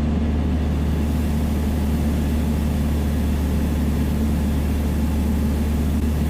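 Steady low drone of a Piper Dakota's six-cylinder Lycoming piston engine and propeller in flight, heard from inside the cockpit.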